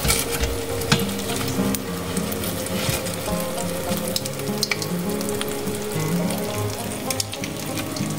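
Spring rolls sizzling and crackling as they fry in hot oil in a frying pan, with scattered sharp clicks and pops.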